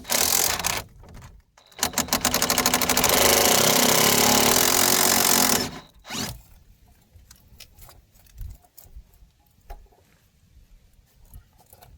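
An impact wrench hammering on the stabilizer link's nut: a short burst, then about four seconds of steady rapid hammering that stops suddenly. Light clicks and knocks of tools and parts follow.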